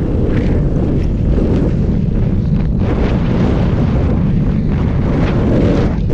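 Loud wind noise from the airflow of a paraglider in flight buffeting the camera's microphone: a steady low rumble of rushing air.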